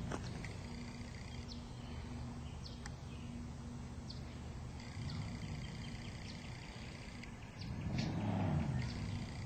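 1966 BSA Lightning's 650 cc parallel-twin engine idling steadily, swelling louder for about a second near the end.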